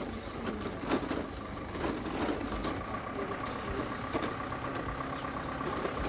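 Truck engine idling, with scattered clattering knocks and, from about halfway in, a steady high pulsing tone.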